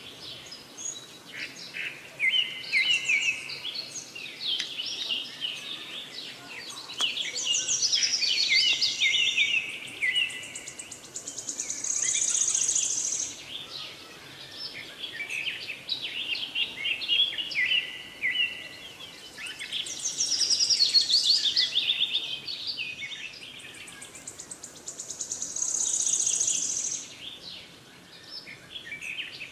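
Songbirds chirping and singing: quick high trills and falling runs of chirps. The pattern comes back roughly every 13 seconds, like a looped birdsong track.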